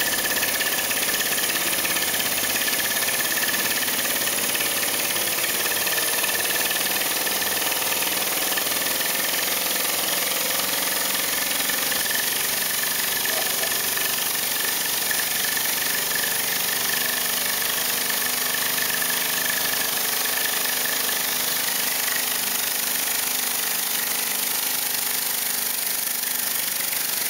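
Acrylic single-cylinder compressed-air engine running steadily at high speed: a fast, even chatter of escaping air with a steady high whine.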